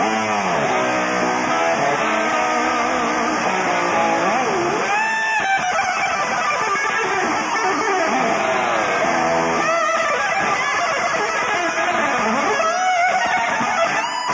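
Electric guitar solo played live with a rock band, the notes repeatedly swooping up and down in pitch.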